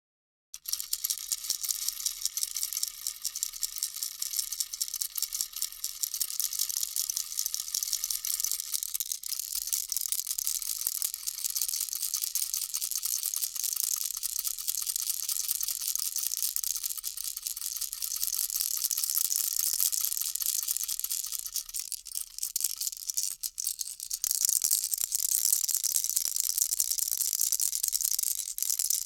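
Baby rattle shaken continuously, a dense, high rattling that starts about half a second in and grows louder near the end.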